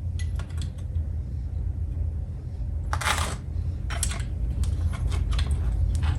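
Small hard plastic and metal parts of a jukebox button panel clicking and clattering as they are handled, with a longer scraping rustle about three seconds in, over a steady low hum.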